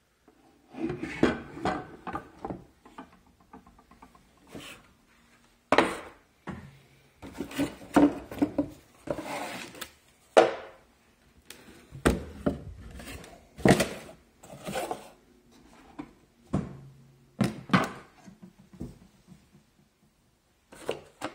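Handling noise from a plastic drywall automatic taper being moved about and set down on a wooden table and its cardboard box: irregular knocks, bumps and rubbing.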